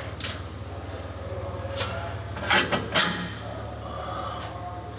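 A few sharp knocks and clanks, as of steel parts being handled and set down, with the loudest pair about two and a half seconds in and another at three seconds, over a steady low hum.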